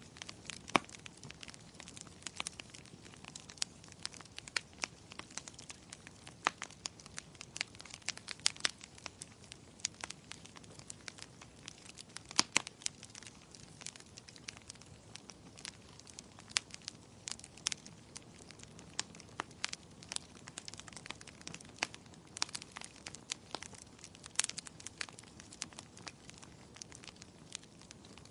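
Wood fire in a fireplace crackling: irregular sharp pops and snaps over a soft steady hiss, with a few louder pops, such as one a little under a second in and a pair about halfway through.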